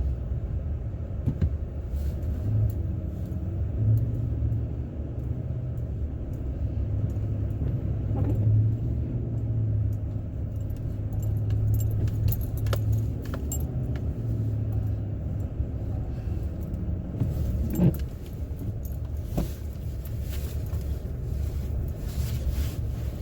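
Pickup truck engine and drivetrain droning steadily inside the cab while driving in four-wheel drive high through deep, drifted snow, with light rattles and clicks and a sharper knock about 18 seconds in.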